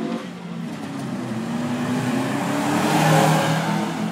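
A car driving past at speed under acceleration, its engine and exhaust growing louder to a peak about three seconds in, then starting to fade as it moves away.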